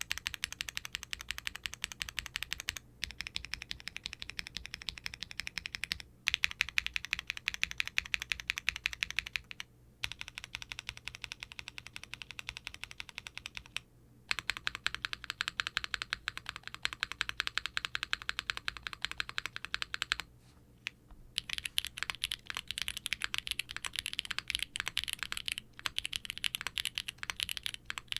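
Steady typing on a Qwertykeys QK60 R3 mechanical keyboard with HMX K01 light tactile switches, a POM plate and GMK double-shot ABS keycaps: fast runs of keystrokes broken by short pauses every few seconds.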